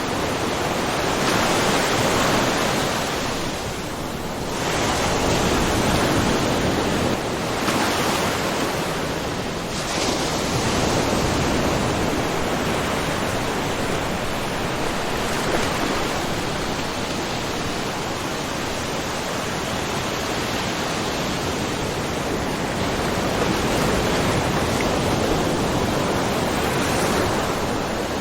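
Small ocean waves washing and splashing on a rocky shore, a continuous rush of water that swells and eases every few seconds.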